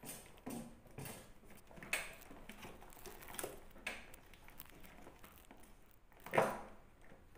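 Scattered light clicks and knocks of plastic and rubber parts as a 12 V gel battery is seated in a Kawasaki Ninja 250 Fi's battery tray and its rubber holder is pushed into place. One louder, short scraping knock comes about six seconds in.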